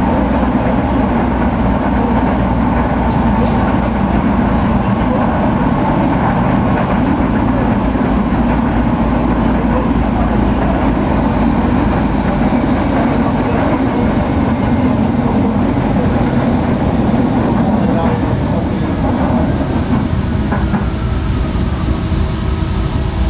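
Tram running on its rails: a steady rumble of wheels on track, with some clickety-clack. A few whining tones come in near the end.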